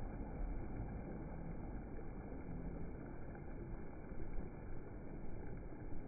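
Small waves breaking and washing in over a sandy shore, a steady low rush of surf without distinct separate crashes.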